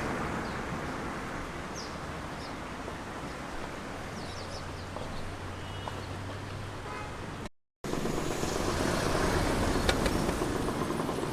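Outdoor ambience: a steady rushing noise with a few short bird chirps and a low engine hum. After a brief dropout about three-quarters of the way in, the noise comes back louder.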